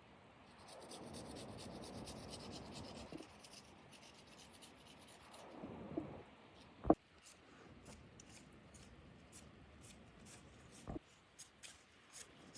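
Rubbing and scraping for about five seconds, then a sharp knock about seven seconds in and a lighter one near eleven seconds, with faint ticks in between.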